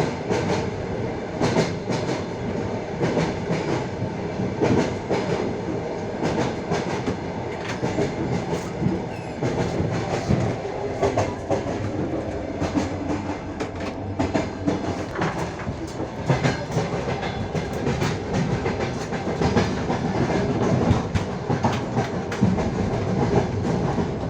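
Wheels of a moving passenger train clacking over rail joints, heard from the carriage window, with the steady rumble of the carriage running under many sharp, irregular knocks.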